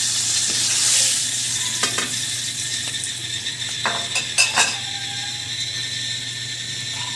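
Hot mustard-oil-style frying oil sizzling steadily in a kadai, with a few sharp clinks of a metal utensil against the pan, once about two seconds in and a quick cluster around four seconds in, as the fried hilsa pieces are lifted out.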